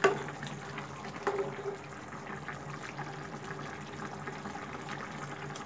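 A pan of fish and pumpkin curry simmering, its broth bubbling with small pops. A silicone spatula knocks lightly against the pan at the start and again about a second in.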